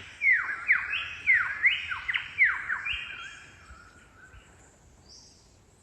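Superb lyrebird singing: a quick run of about six loud whistles, each sweeping steeply downward, which fades out after about three seconds. A faint high note follows near the end.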